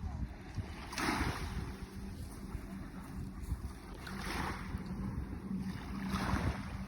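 Wind buffeting the microphone over sea waves washing on the shore, with three short hissing surges of surf: about a second in, just past four seconds and past six seconds.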